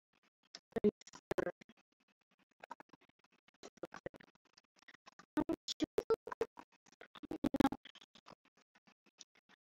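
Computer keyboard typing: sharp keystroke clicks in a few short bursts, with pauses between.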